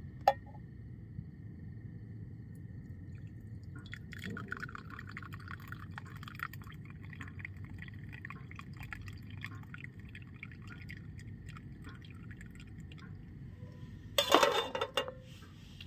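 Hot tea poured from a camping cooking pot into a ceramic mug, a thin trickling stream that starts about four seconds in and runs for several seconds. A brief loud clatter comes near the end.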